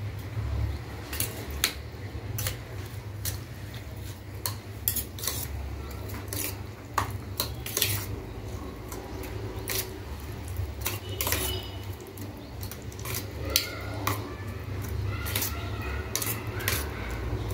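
A spoon clinking against a bowl as raita (yogurt with onion, green chilli, salt and coriander) is stirred together: irregular clinks, a few a second, over a steady low hum.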